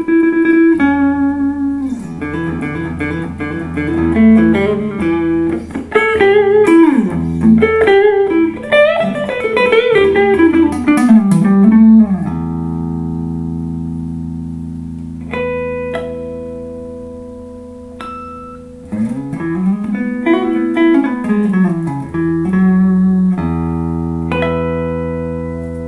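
2008 Epiphone Sheraton II semi-hollow electric guitar played clean through a Fender Blues Junior valve amp: quick single-note lead phrases with string bends, twice settling onto a chord that is left to ring and slowly fade.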